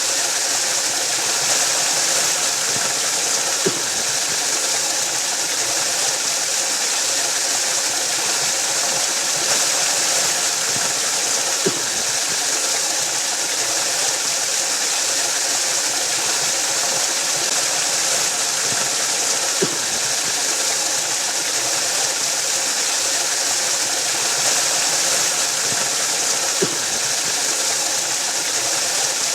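Waterfall rushing in a steady, unbroken hiss-like roar, with a faint short click about every eight seconds.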